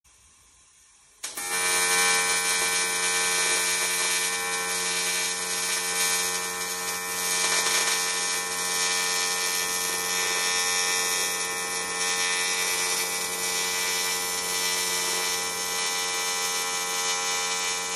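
TIG welding arc buzzing steadily as a bead is laid. It strikes with a click about a second in and cuts off abruptly at the very end.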